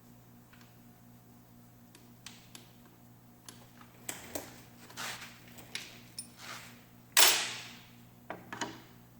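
Workshop handling noises from parts and tools being worked: scattered clicks and knocks, then a run of scraping strokes. One much louder sharp noise comes about seven seconds in and fades over about a second. A steady low hum runs underneath.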